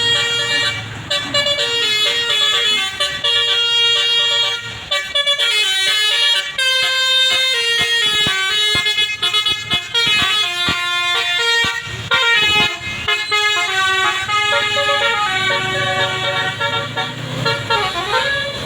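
Bus 'telolet basuri' musical air horn playing a tune: a string of held notes stepping up and down, then a fast run of short notes, and a falling-then-rising swoop near the end.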